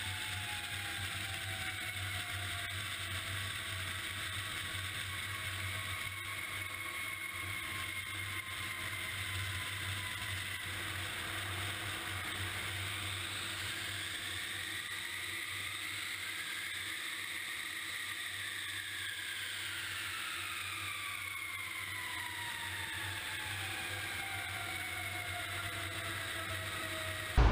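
Airliner jet engine noise during a runway roll: a steady rush with a low hum and whining turbine tones that slowly slide down in pitch, one rising and falling again midway.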